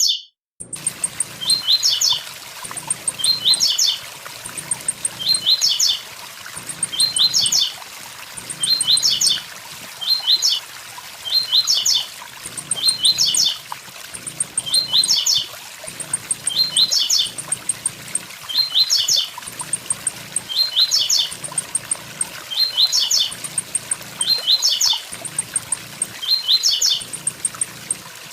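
Blue-black grassquit (tiziu) singing its short "tui tui zel zel" phrase over and over, about once every 1.7 seconds, over the steady rush of a waterfall. The sound cuts out for a moment right at the start.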